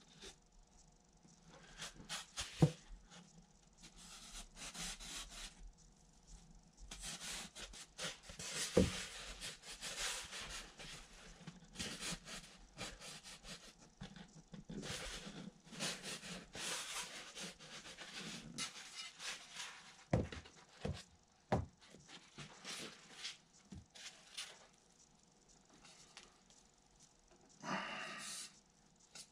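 Hands handling a taped foam wing core on a workbench: scattered rubbing and rustling of hands on foam and masking tape, with a few sharp knocks.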